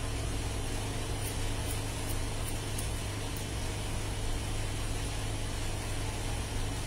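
A steady low hum, with several faint short snips of hair-cutting scissors in the first half.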